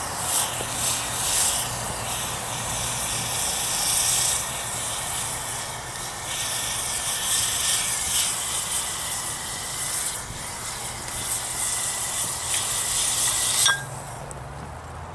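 Hoppe's No. 9 solvent burning around a red-hot muzzle brake in a glass dish: a loud hissing sizzle with surging flame noise. It drops off suddenly near the end.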